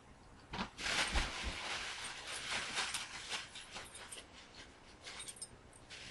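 Two kittens play-fighting: scuffling bodies and the crinkling of a plastic bag they roll on. It starts about half a second in, is loudest over the next two seconds, then eases off.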